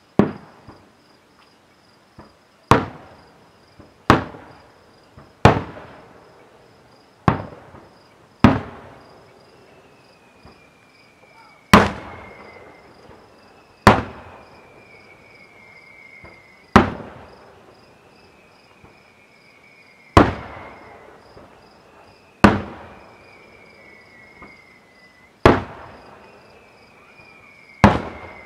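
Aerial firework shells bursting: about a dozen loud booms spaced one to three seconds apart, each trailing off over a second or two, with a few smaller pops between them.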